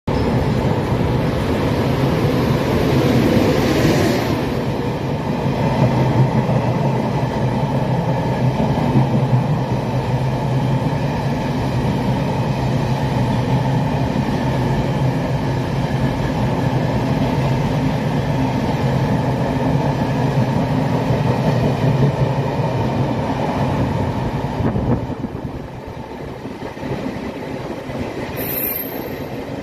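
E500-series electric locomotive hauling thirteen Chu-Kuang coaches running through an underground station platform: a loud, steady rumble of wheels and motor hum, echoing off the station walls. The sound drops about 25 seconds in as the last coach goes by, and a short high squeal falls in pitch near the end.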